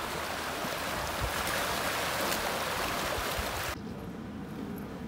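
Small waves washing over a pebble beach: a steady hiss of water running through shingle. It cuts off abruptly near the end to a quieter outdoor background.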